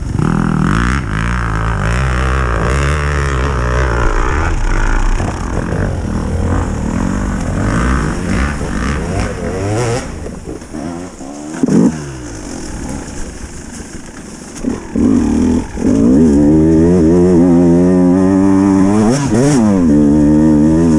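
KTM motorcycle engine revved hard and repeatedly, the revs rising and falling, as the stuck bike is pushed to get free. It eases off about halfway through with one short blip, then is held at high revs, with quick rises and falls near the end.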